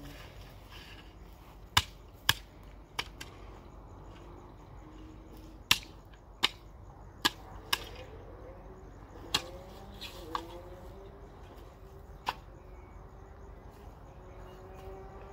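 A long-handled hoe chopping and scraping dry, stony ground: about ten sharp, irregular strikes of the blade.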